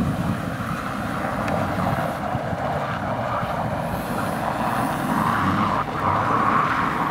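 Renault Duster SUV driving on packed snow, its engine running steadily and getting louder near the end.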